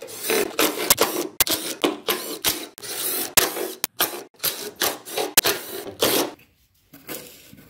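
Cordless impact driver hammering in short bursts as it backs bolts out of a Massey Harris tractor's sheet-metal frame. The bursts stop about six seconds in.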